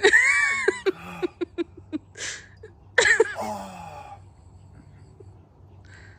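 A person's high-pitched vocal squeal, then a quick run of short clipped vocal sounds, a breathy hiss about two seconds in, and a second squeal about three seconds in that trails off into a breathy rasp.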